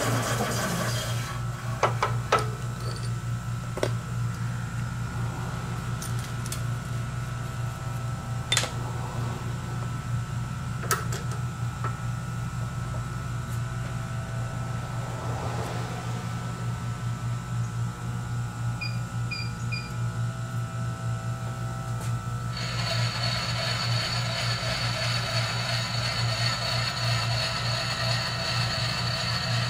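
Bridgeport milling machine in a machine shop: the drill's cut into the steel bearing hub dies away in the first second, leaving a steady low motor hum. Sharp metallic clicks come now and then as the drill is swapped for a countersink. About three quarters of the way through, a higher whirring starts and runs on.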